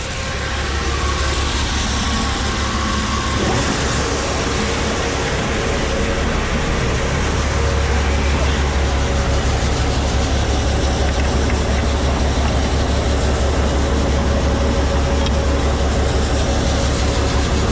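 Grain-handling machinery, likely the grain auger, switched on and running with a steady low, evenly pulsing drone that builds over the first several seconds and then holds.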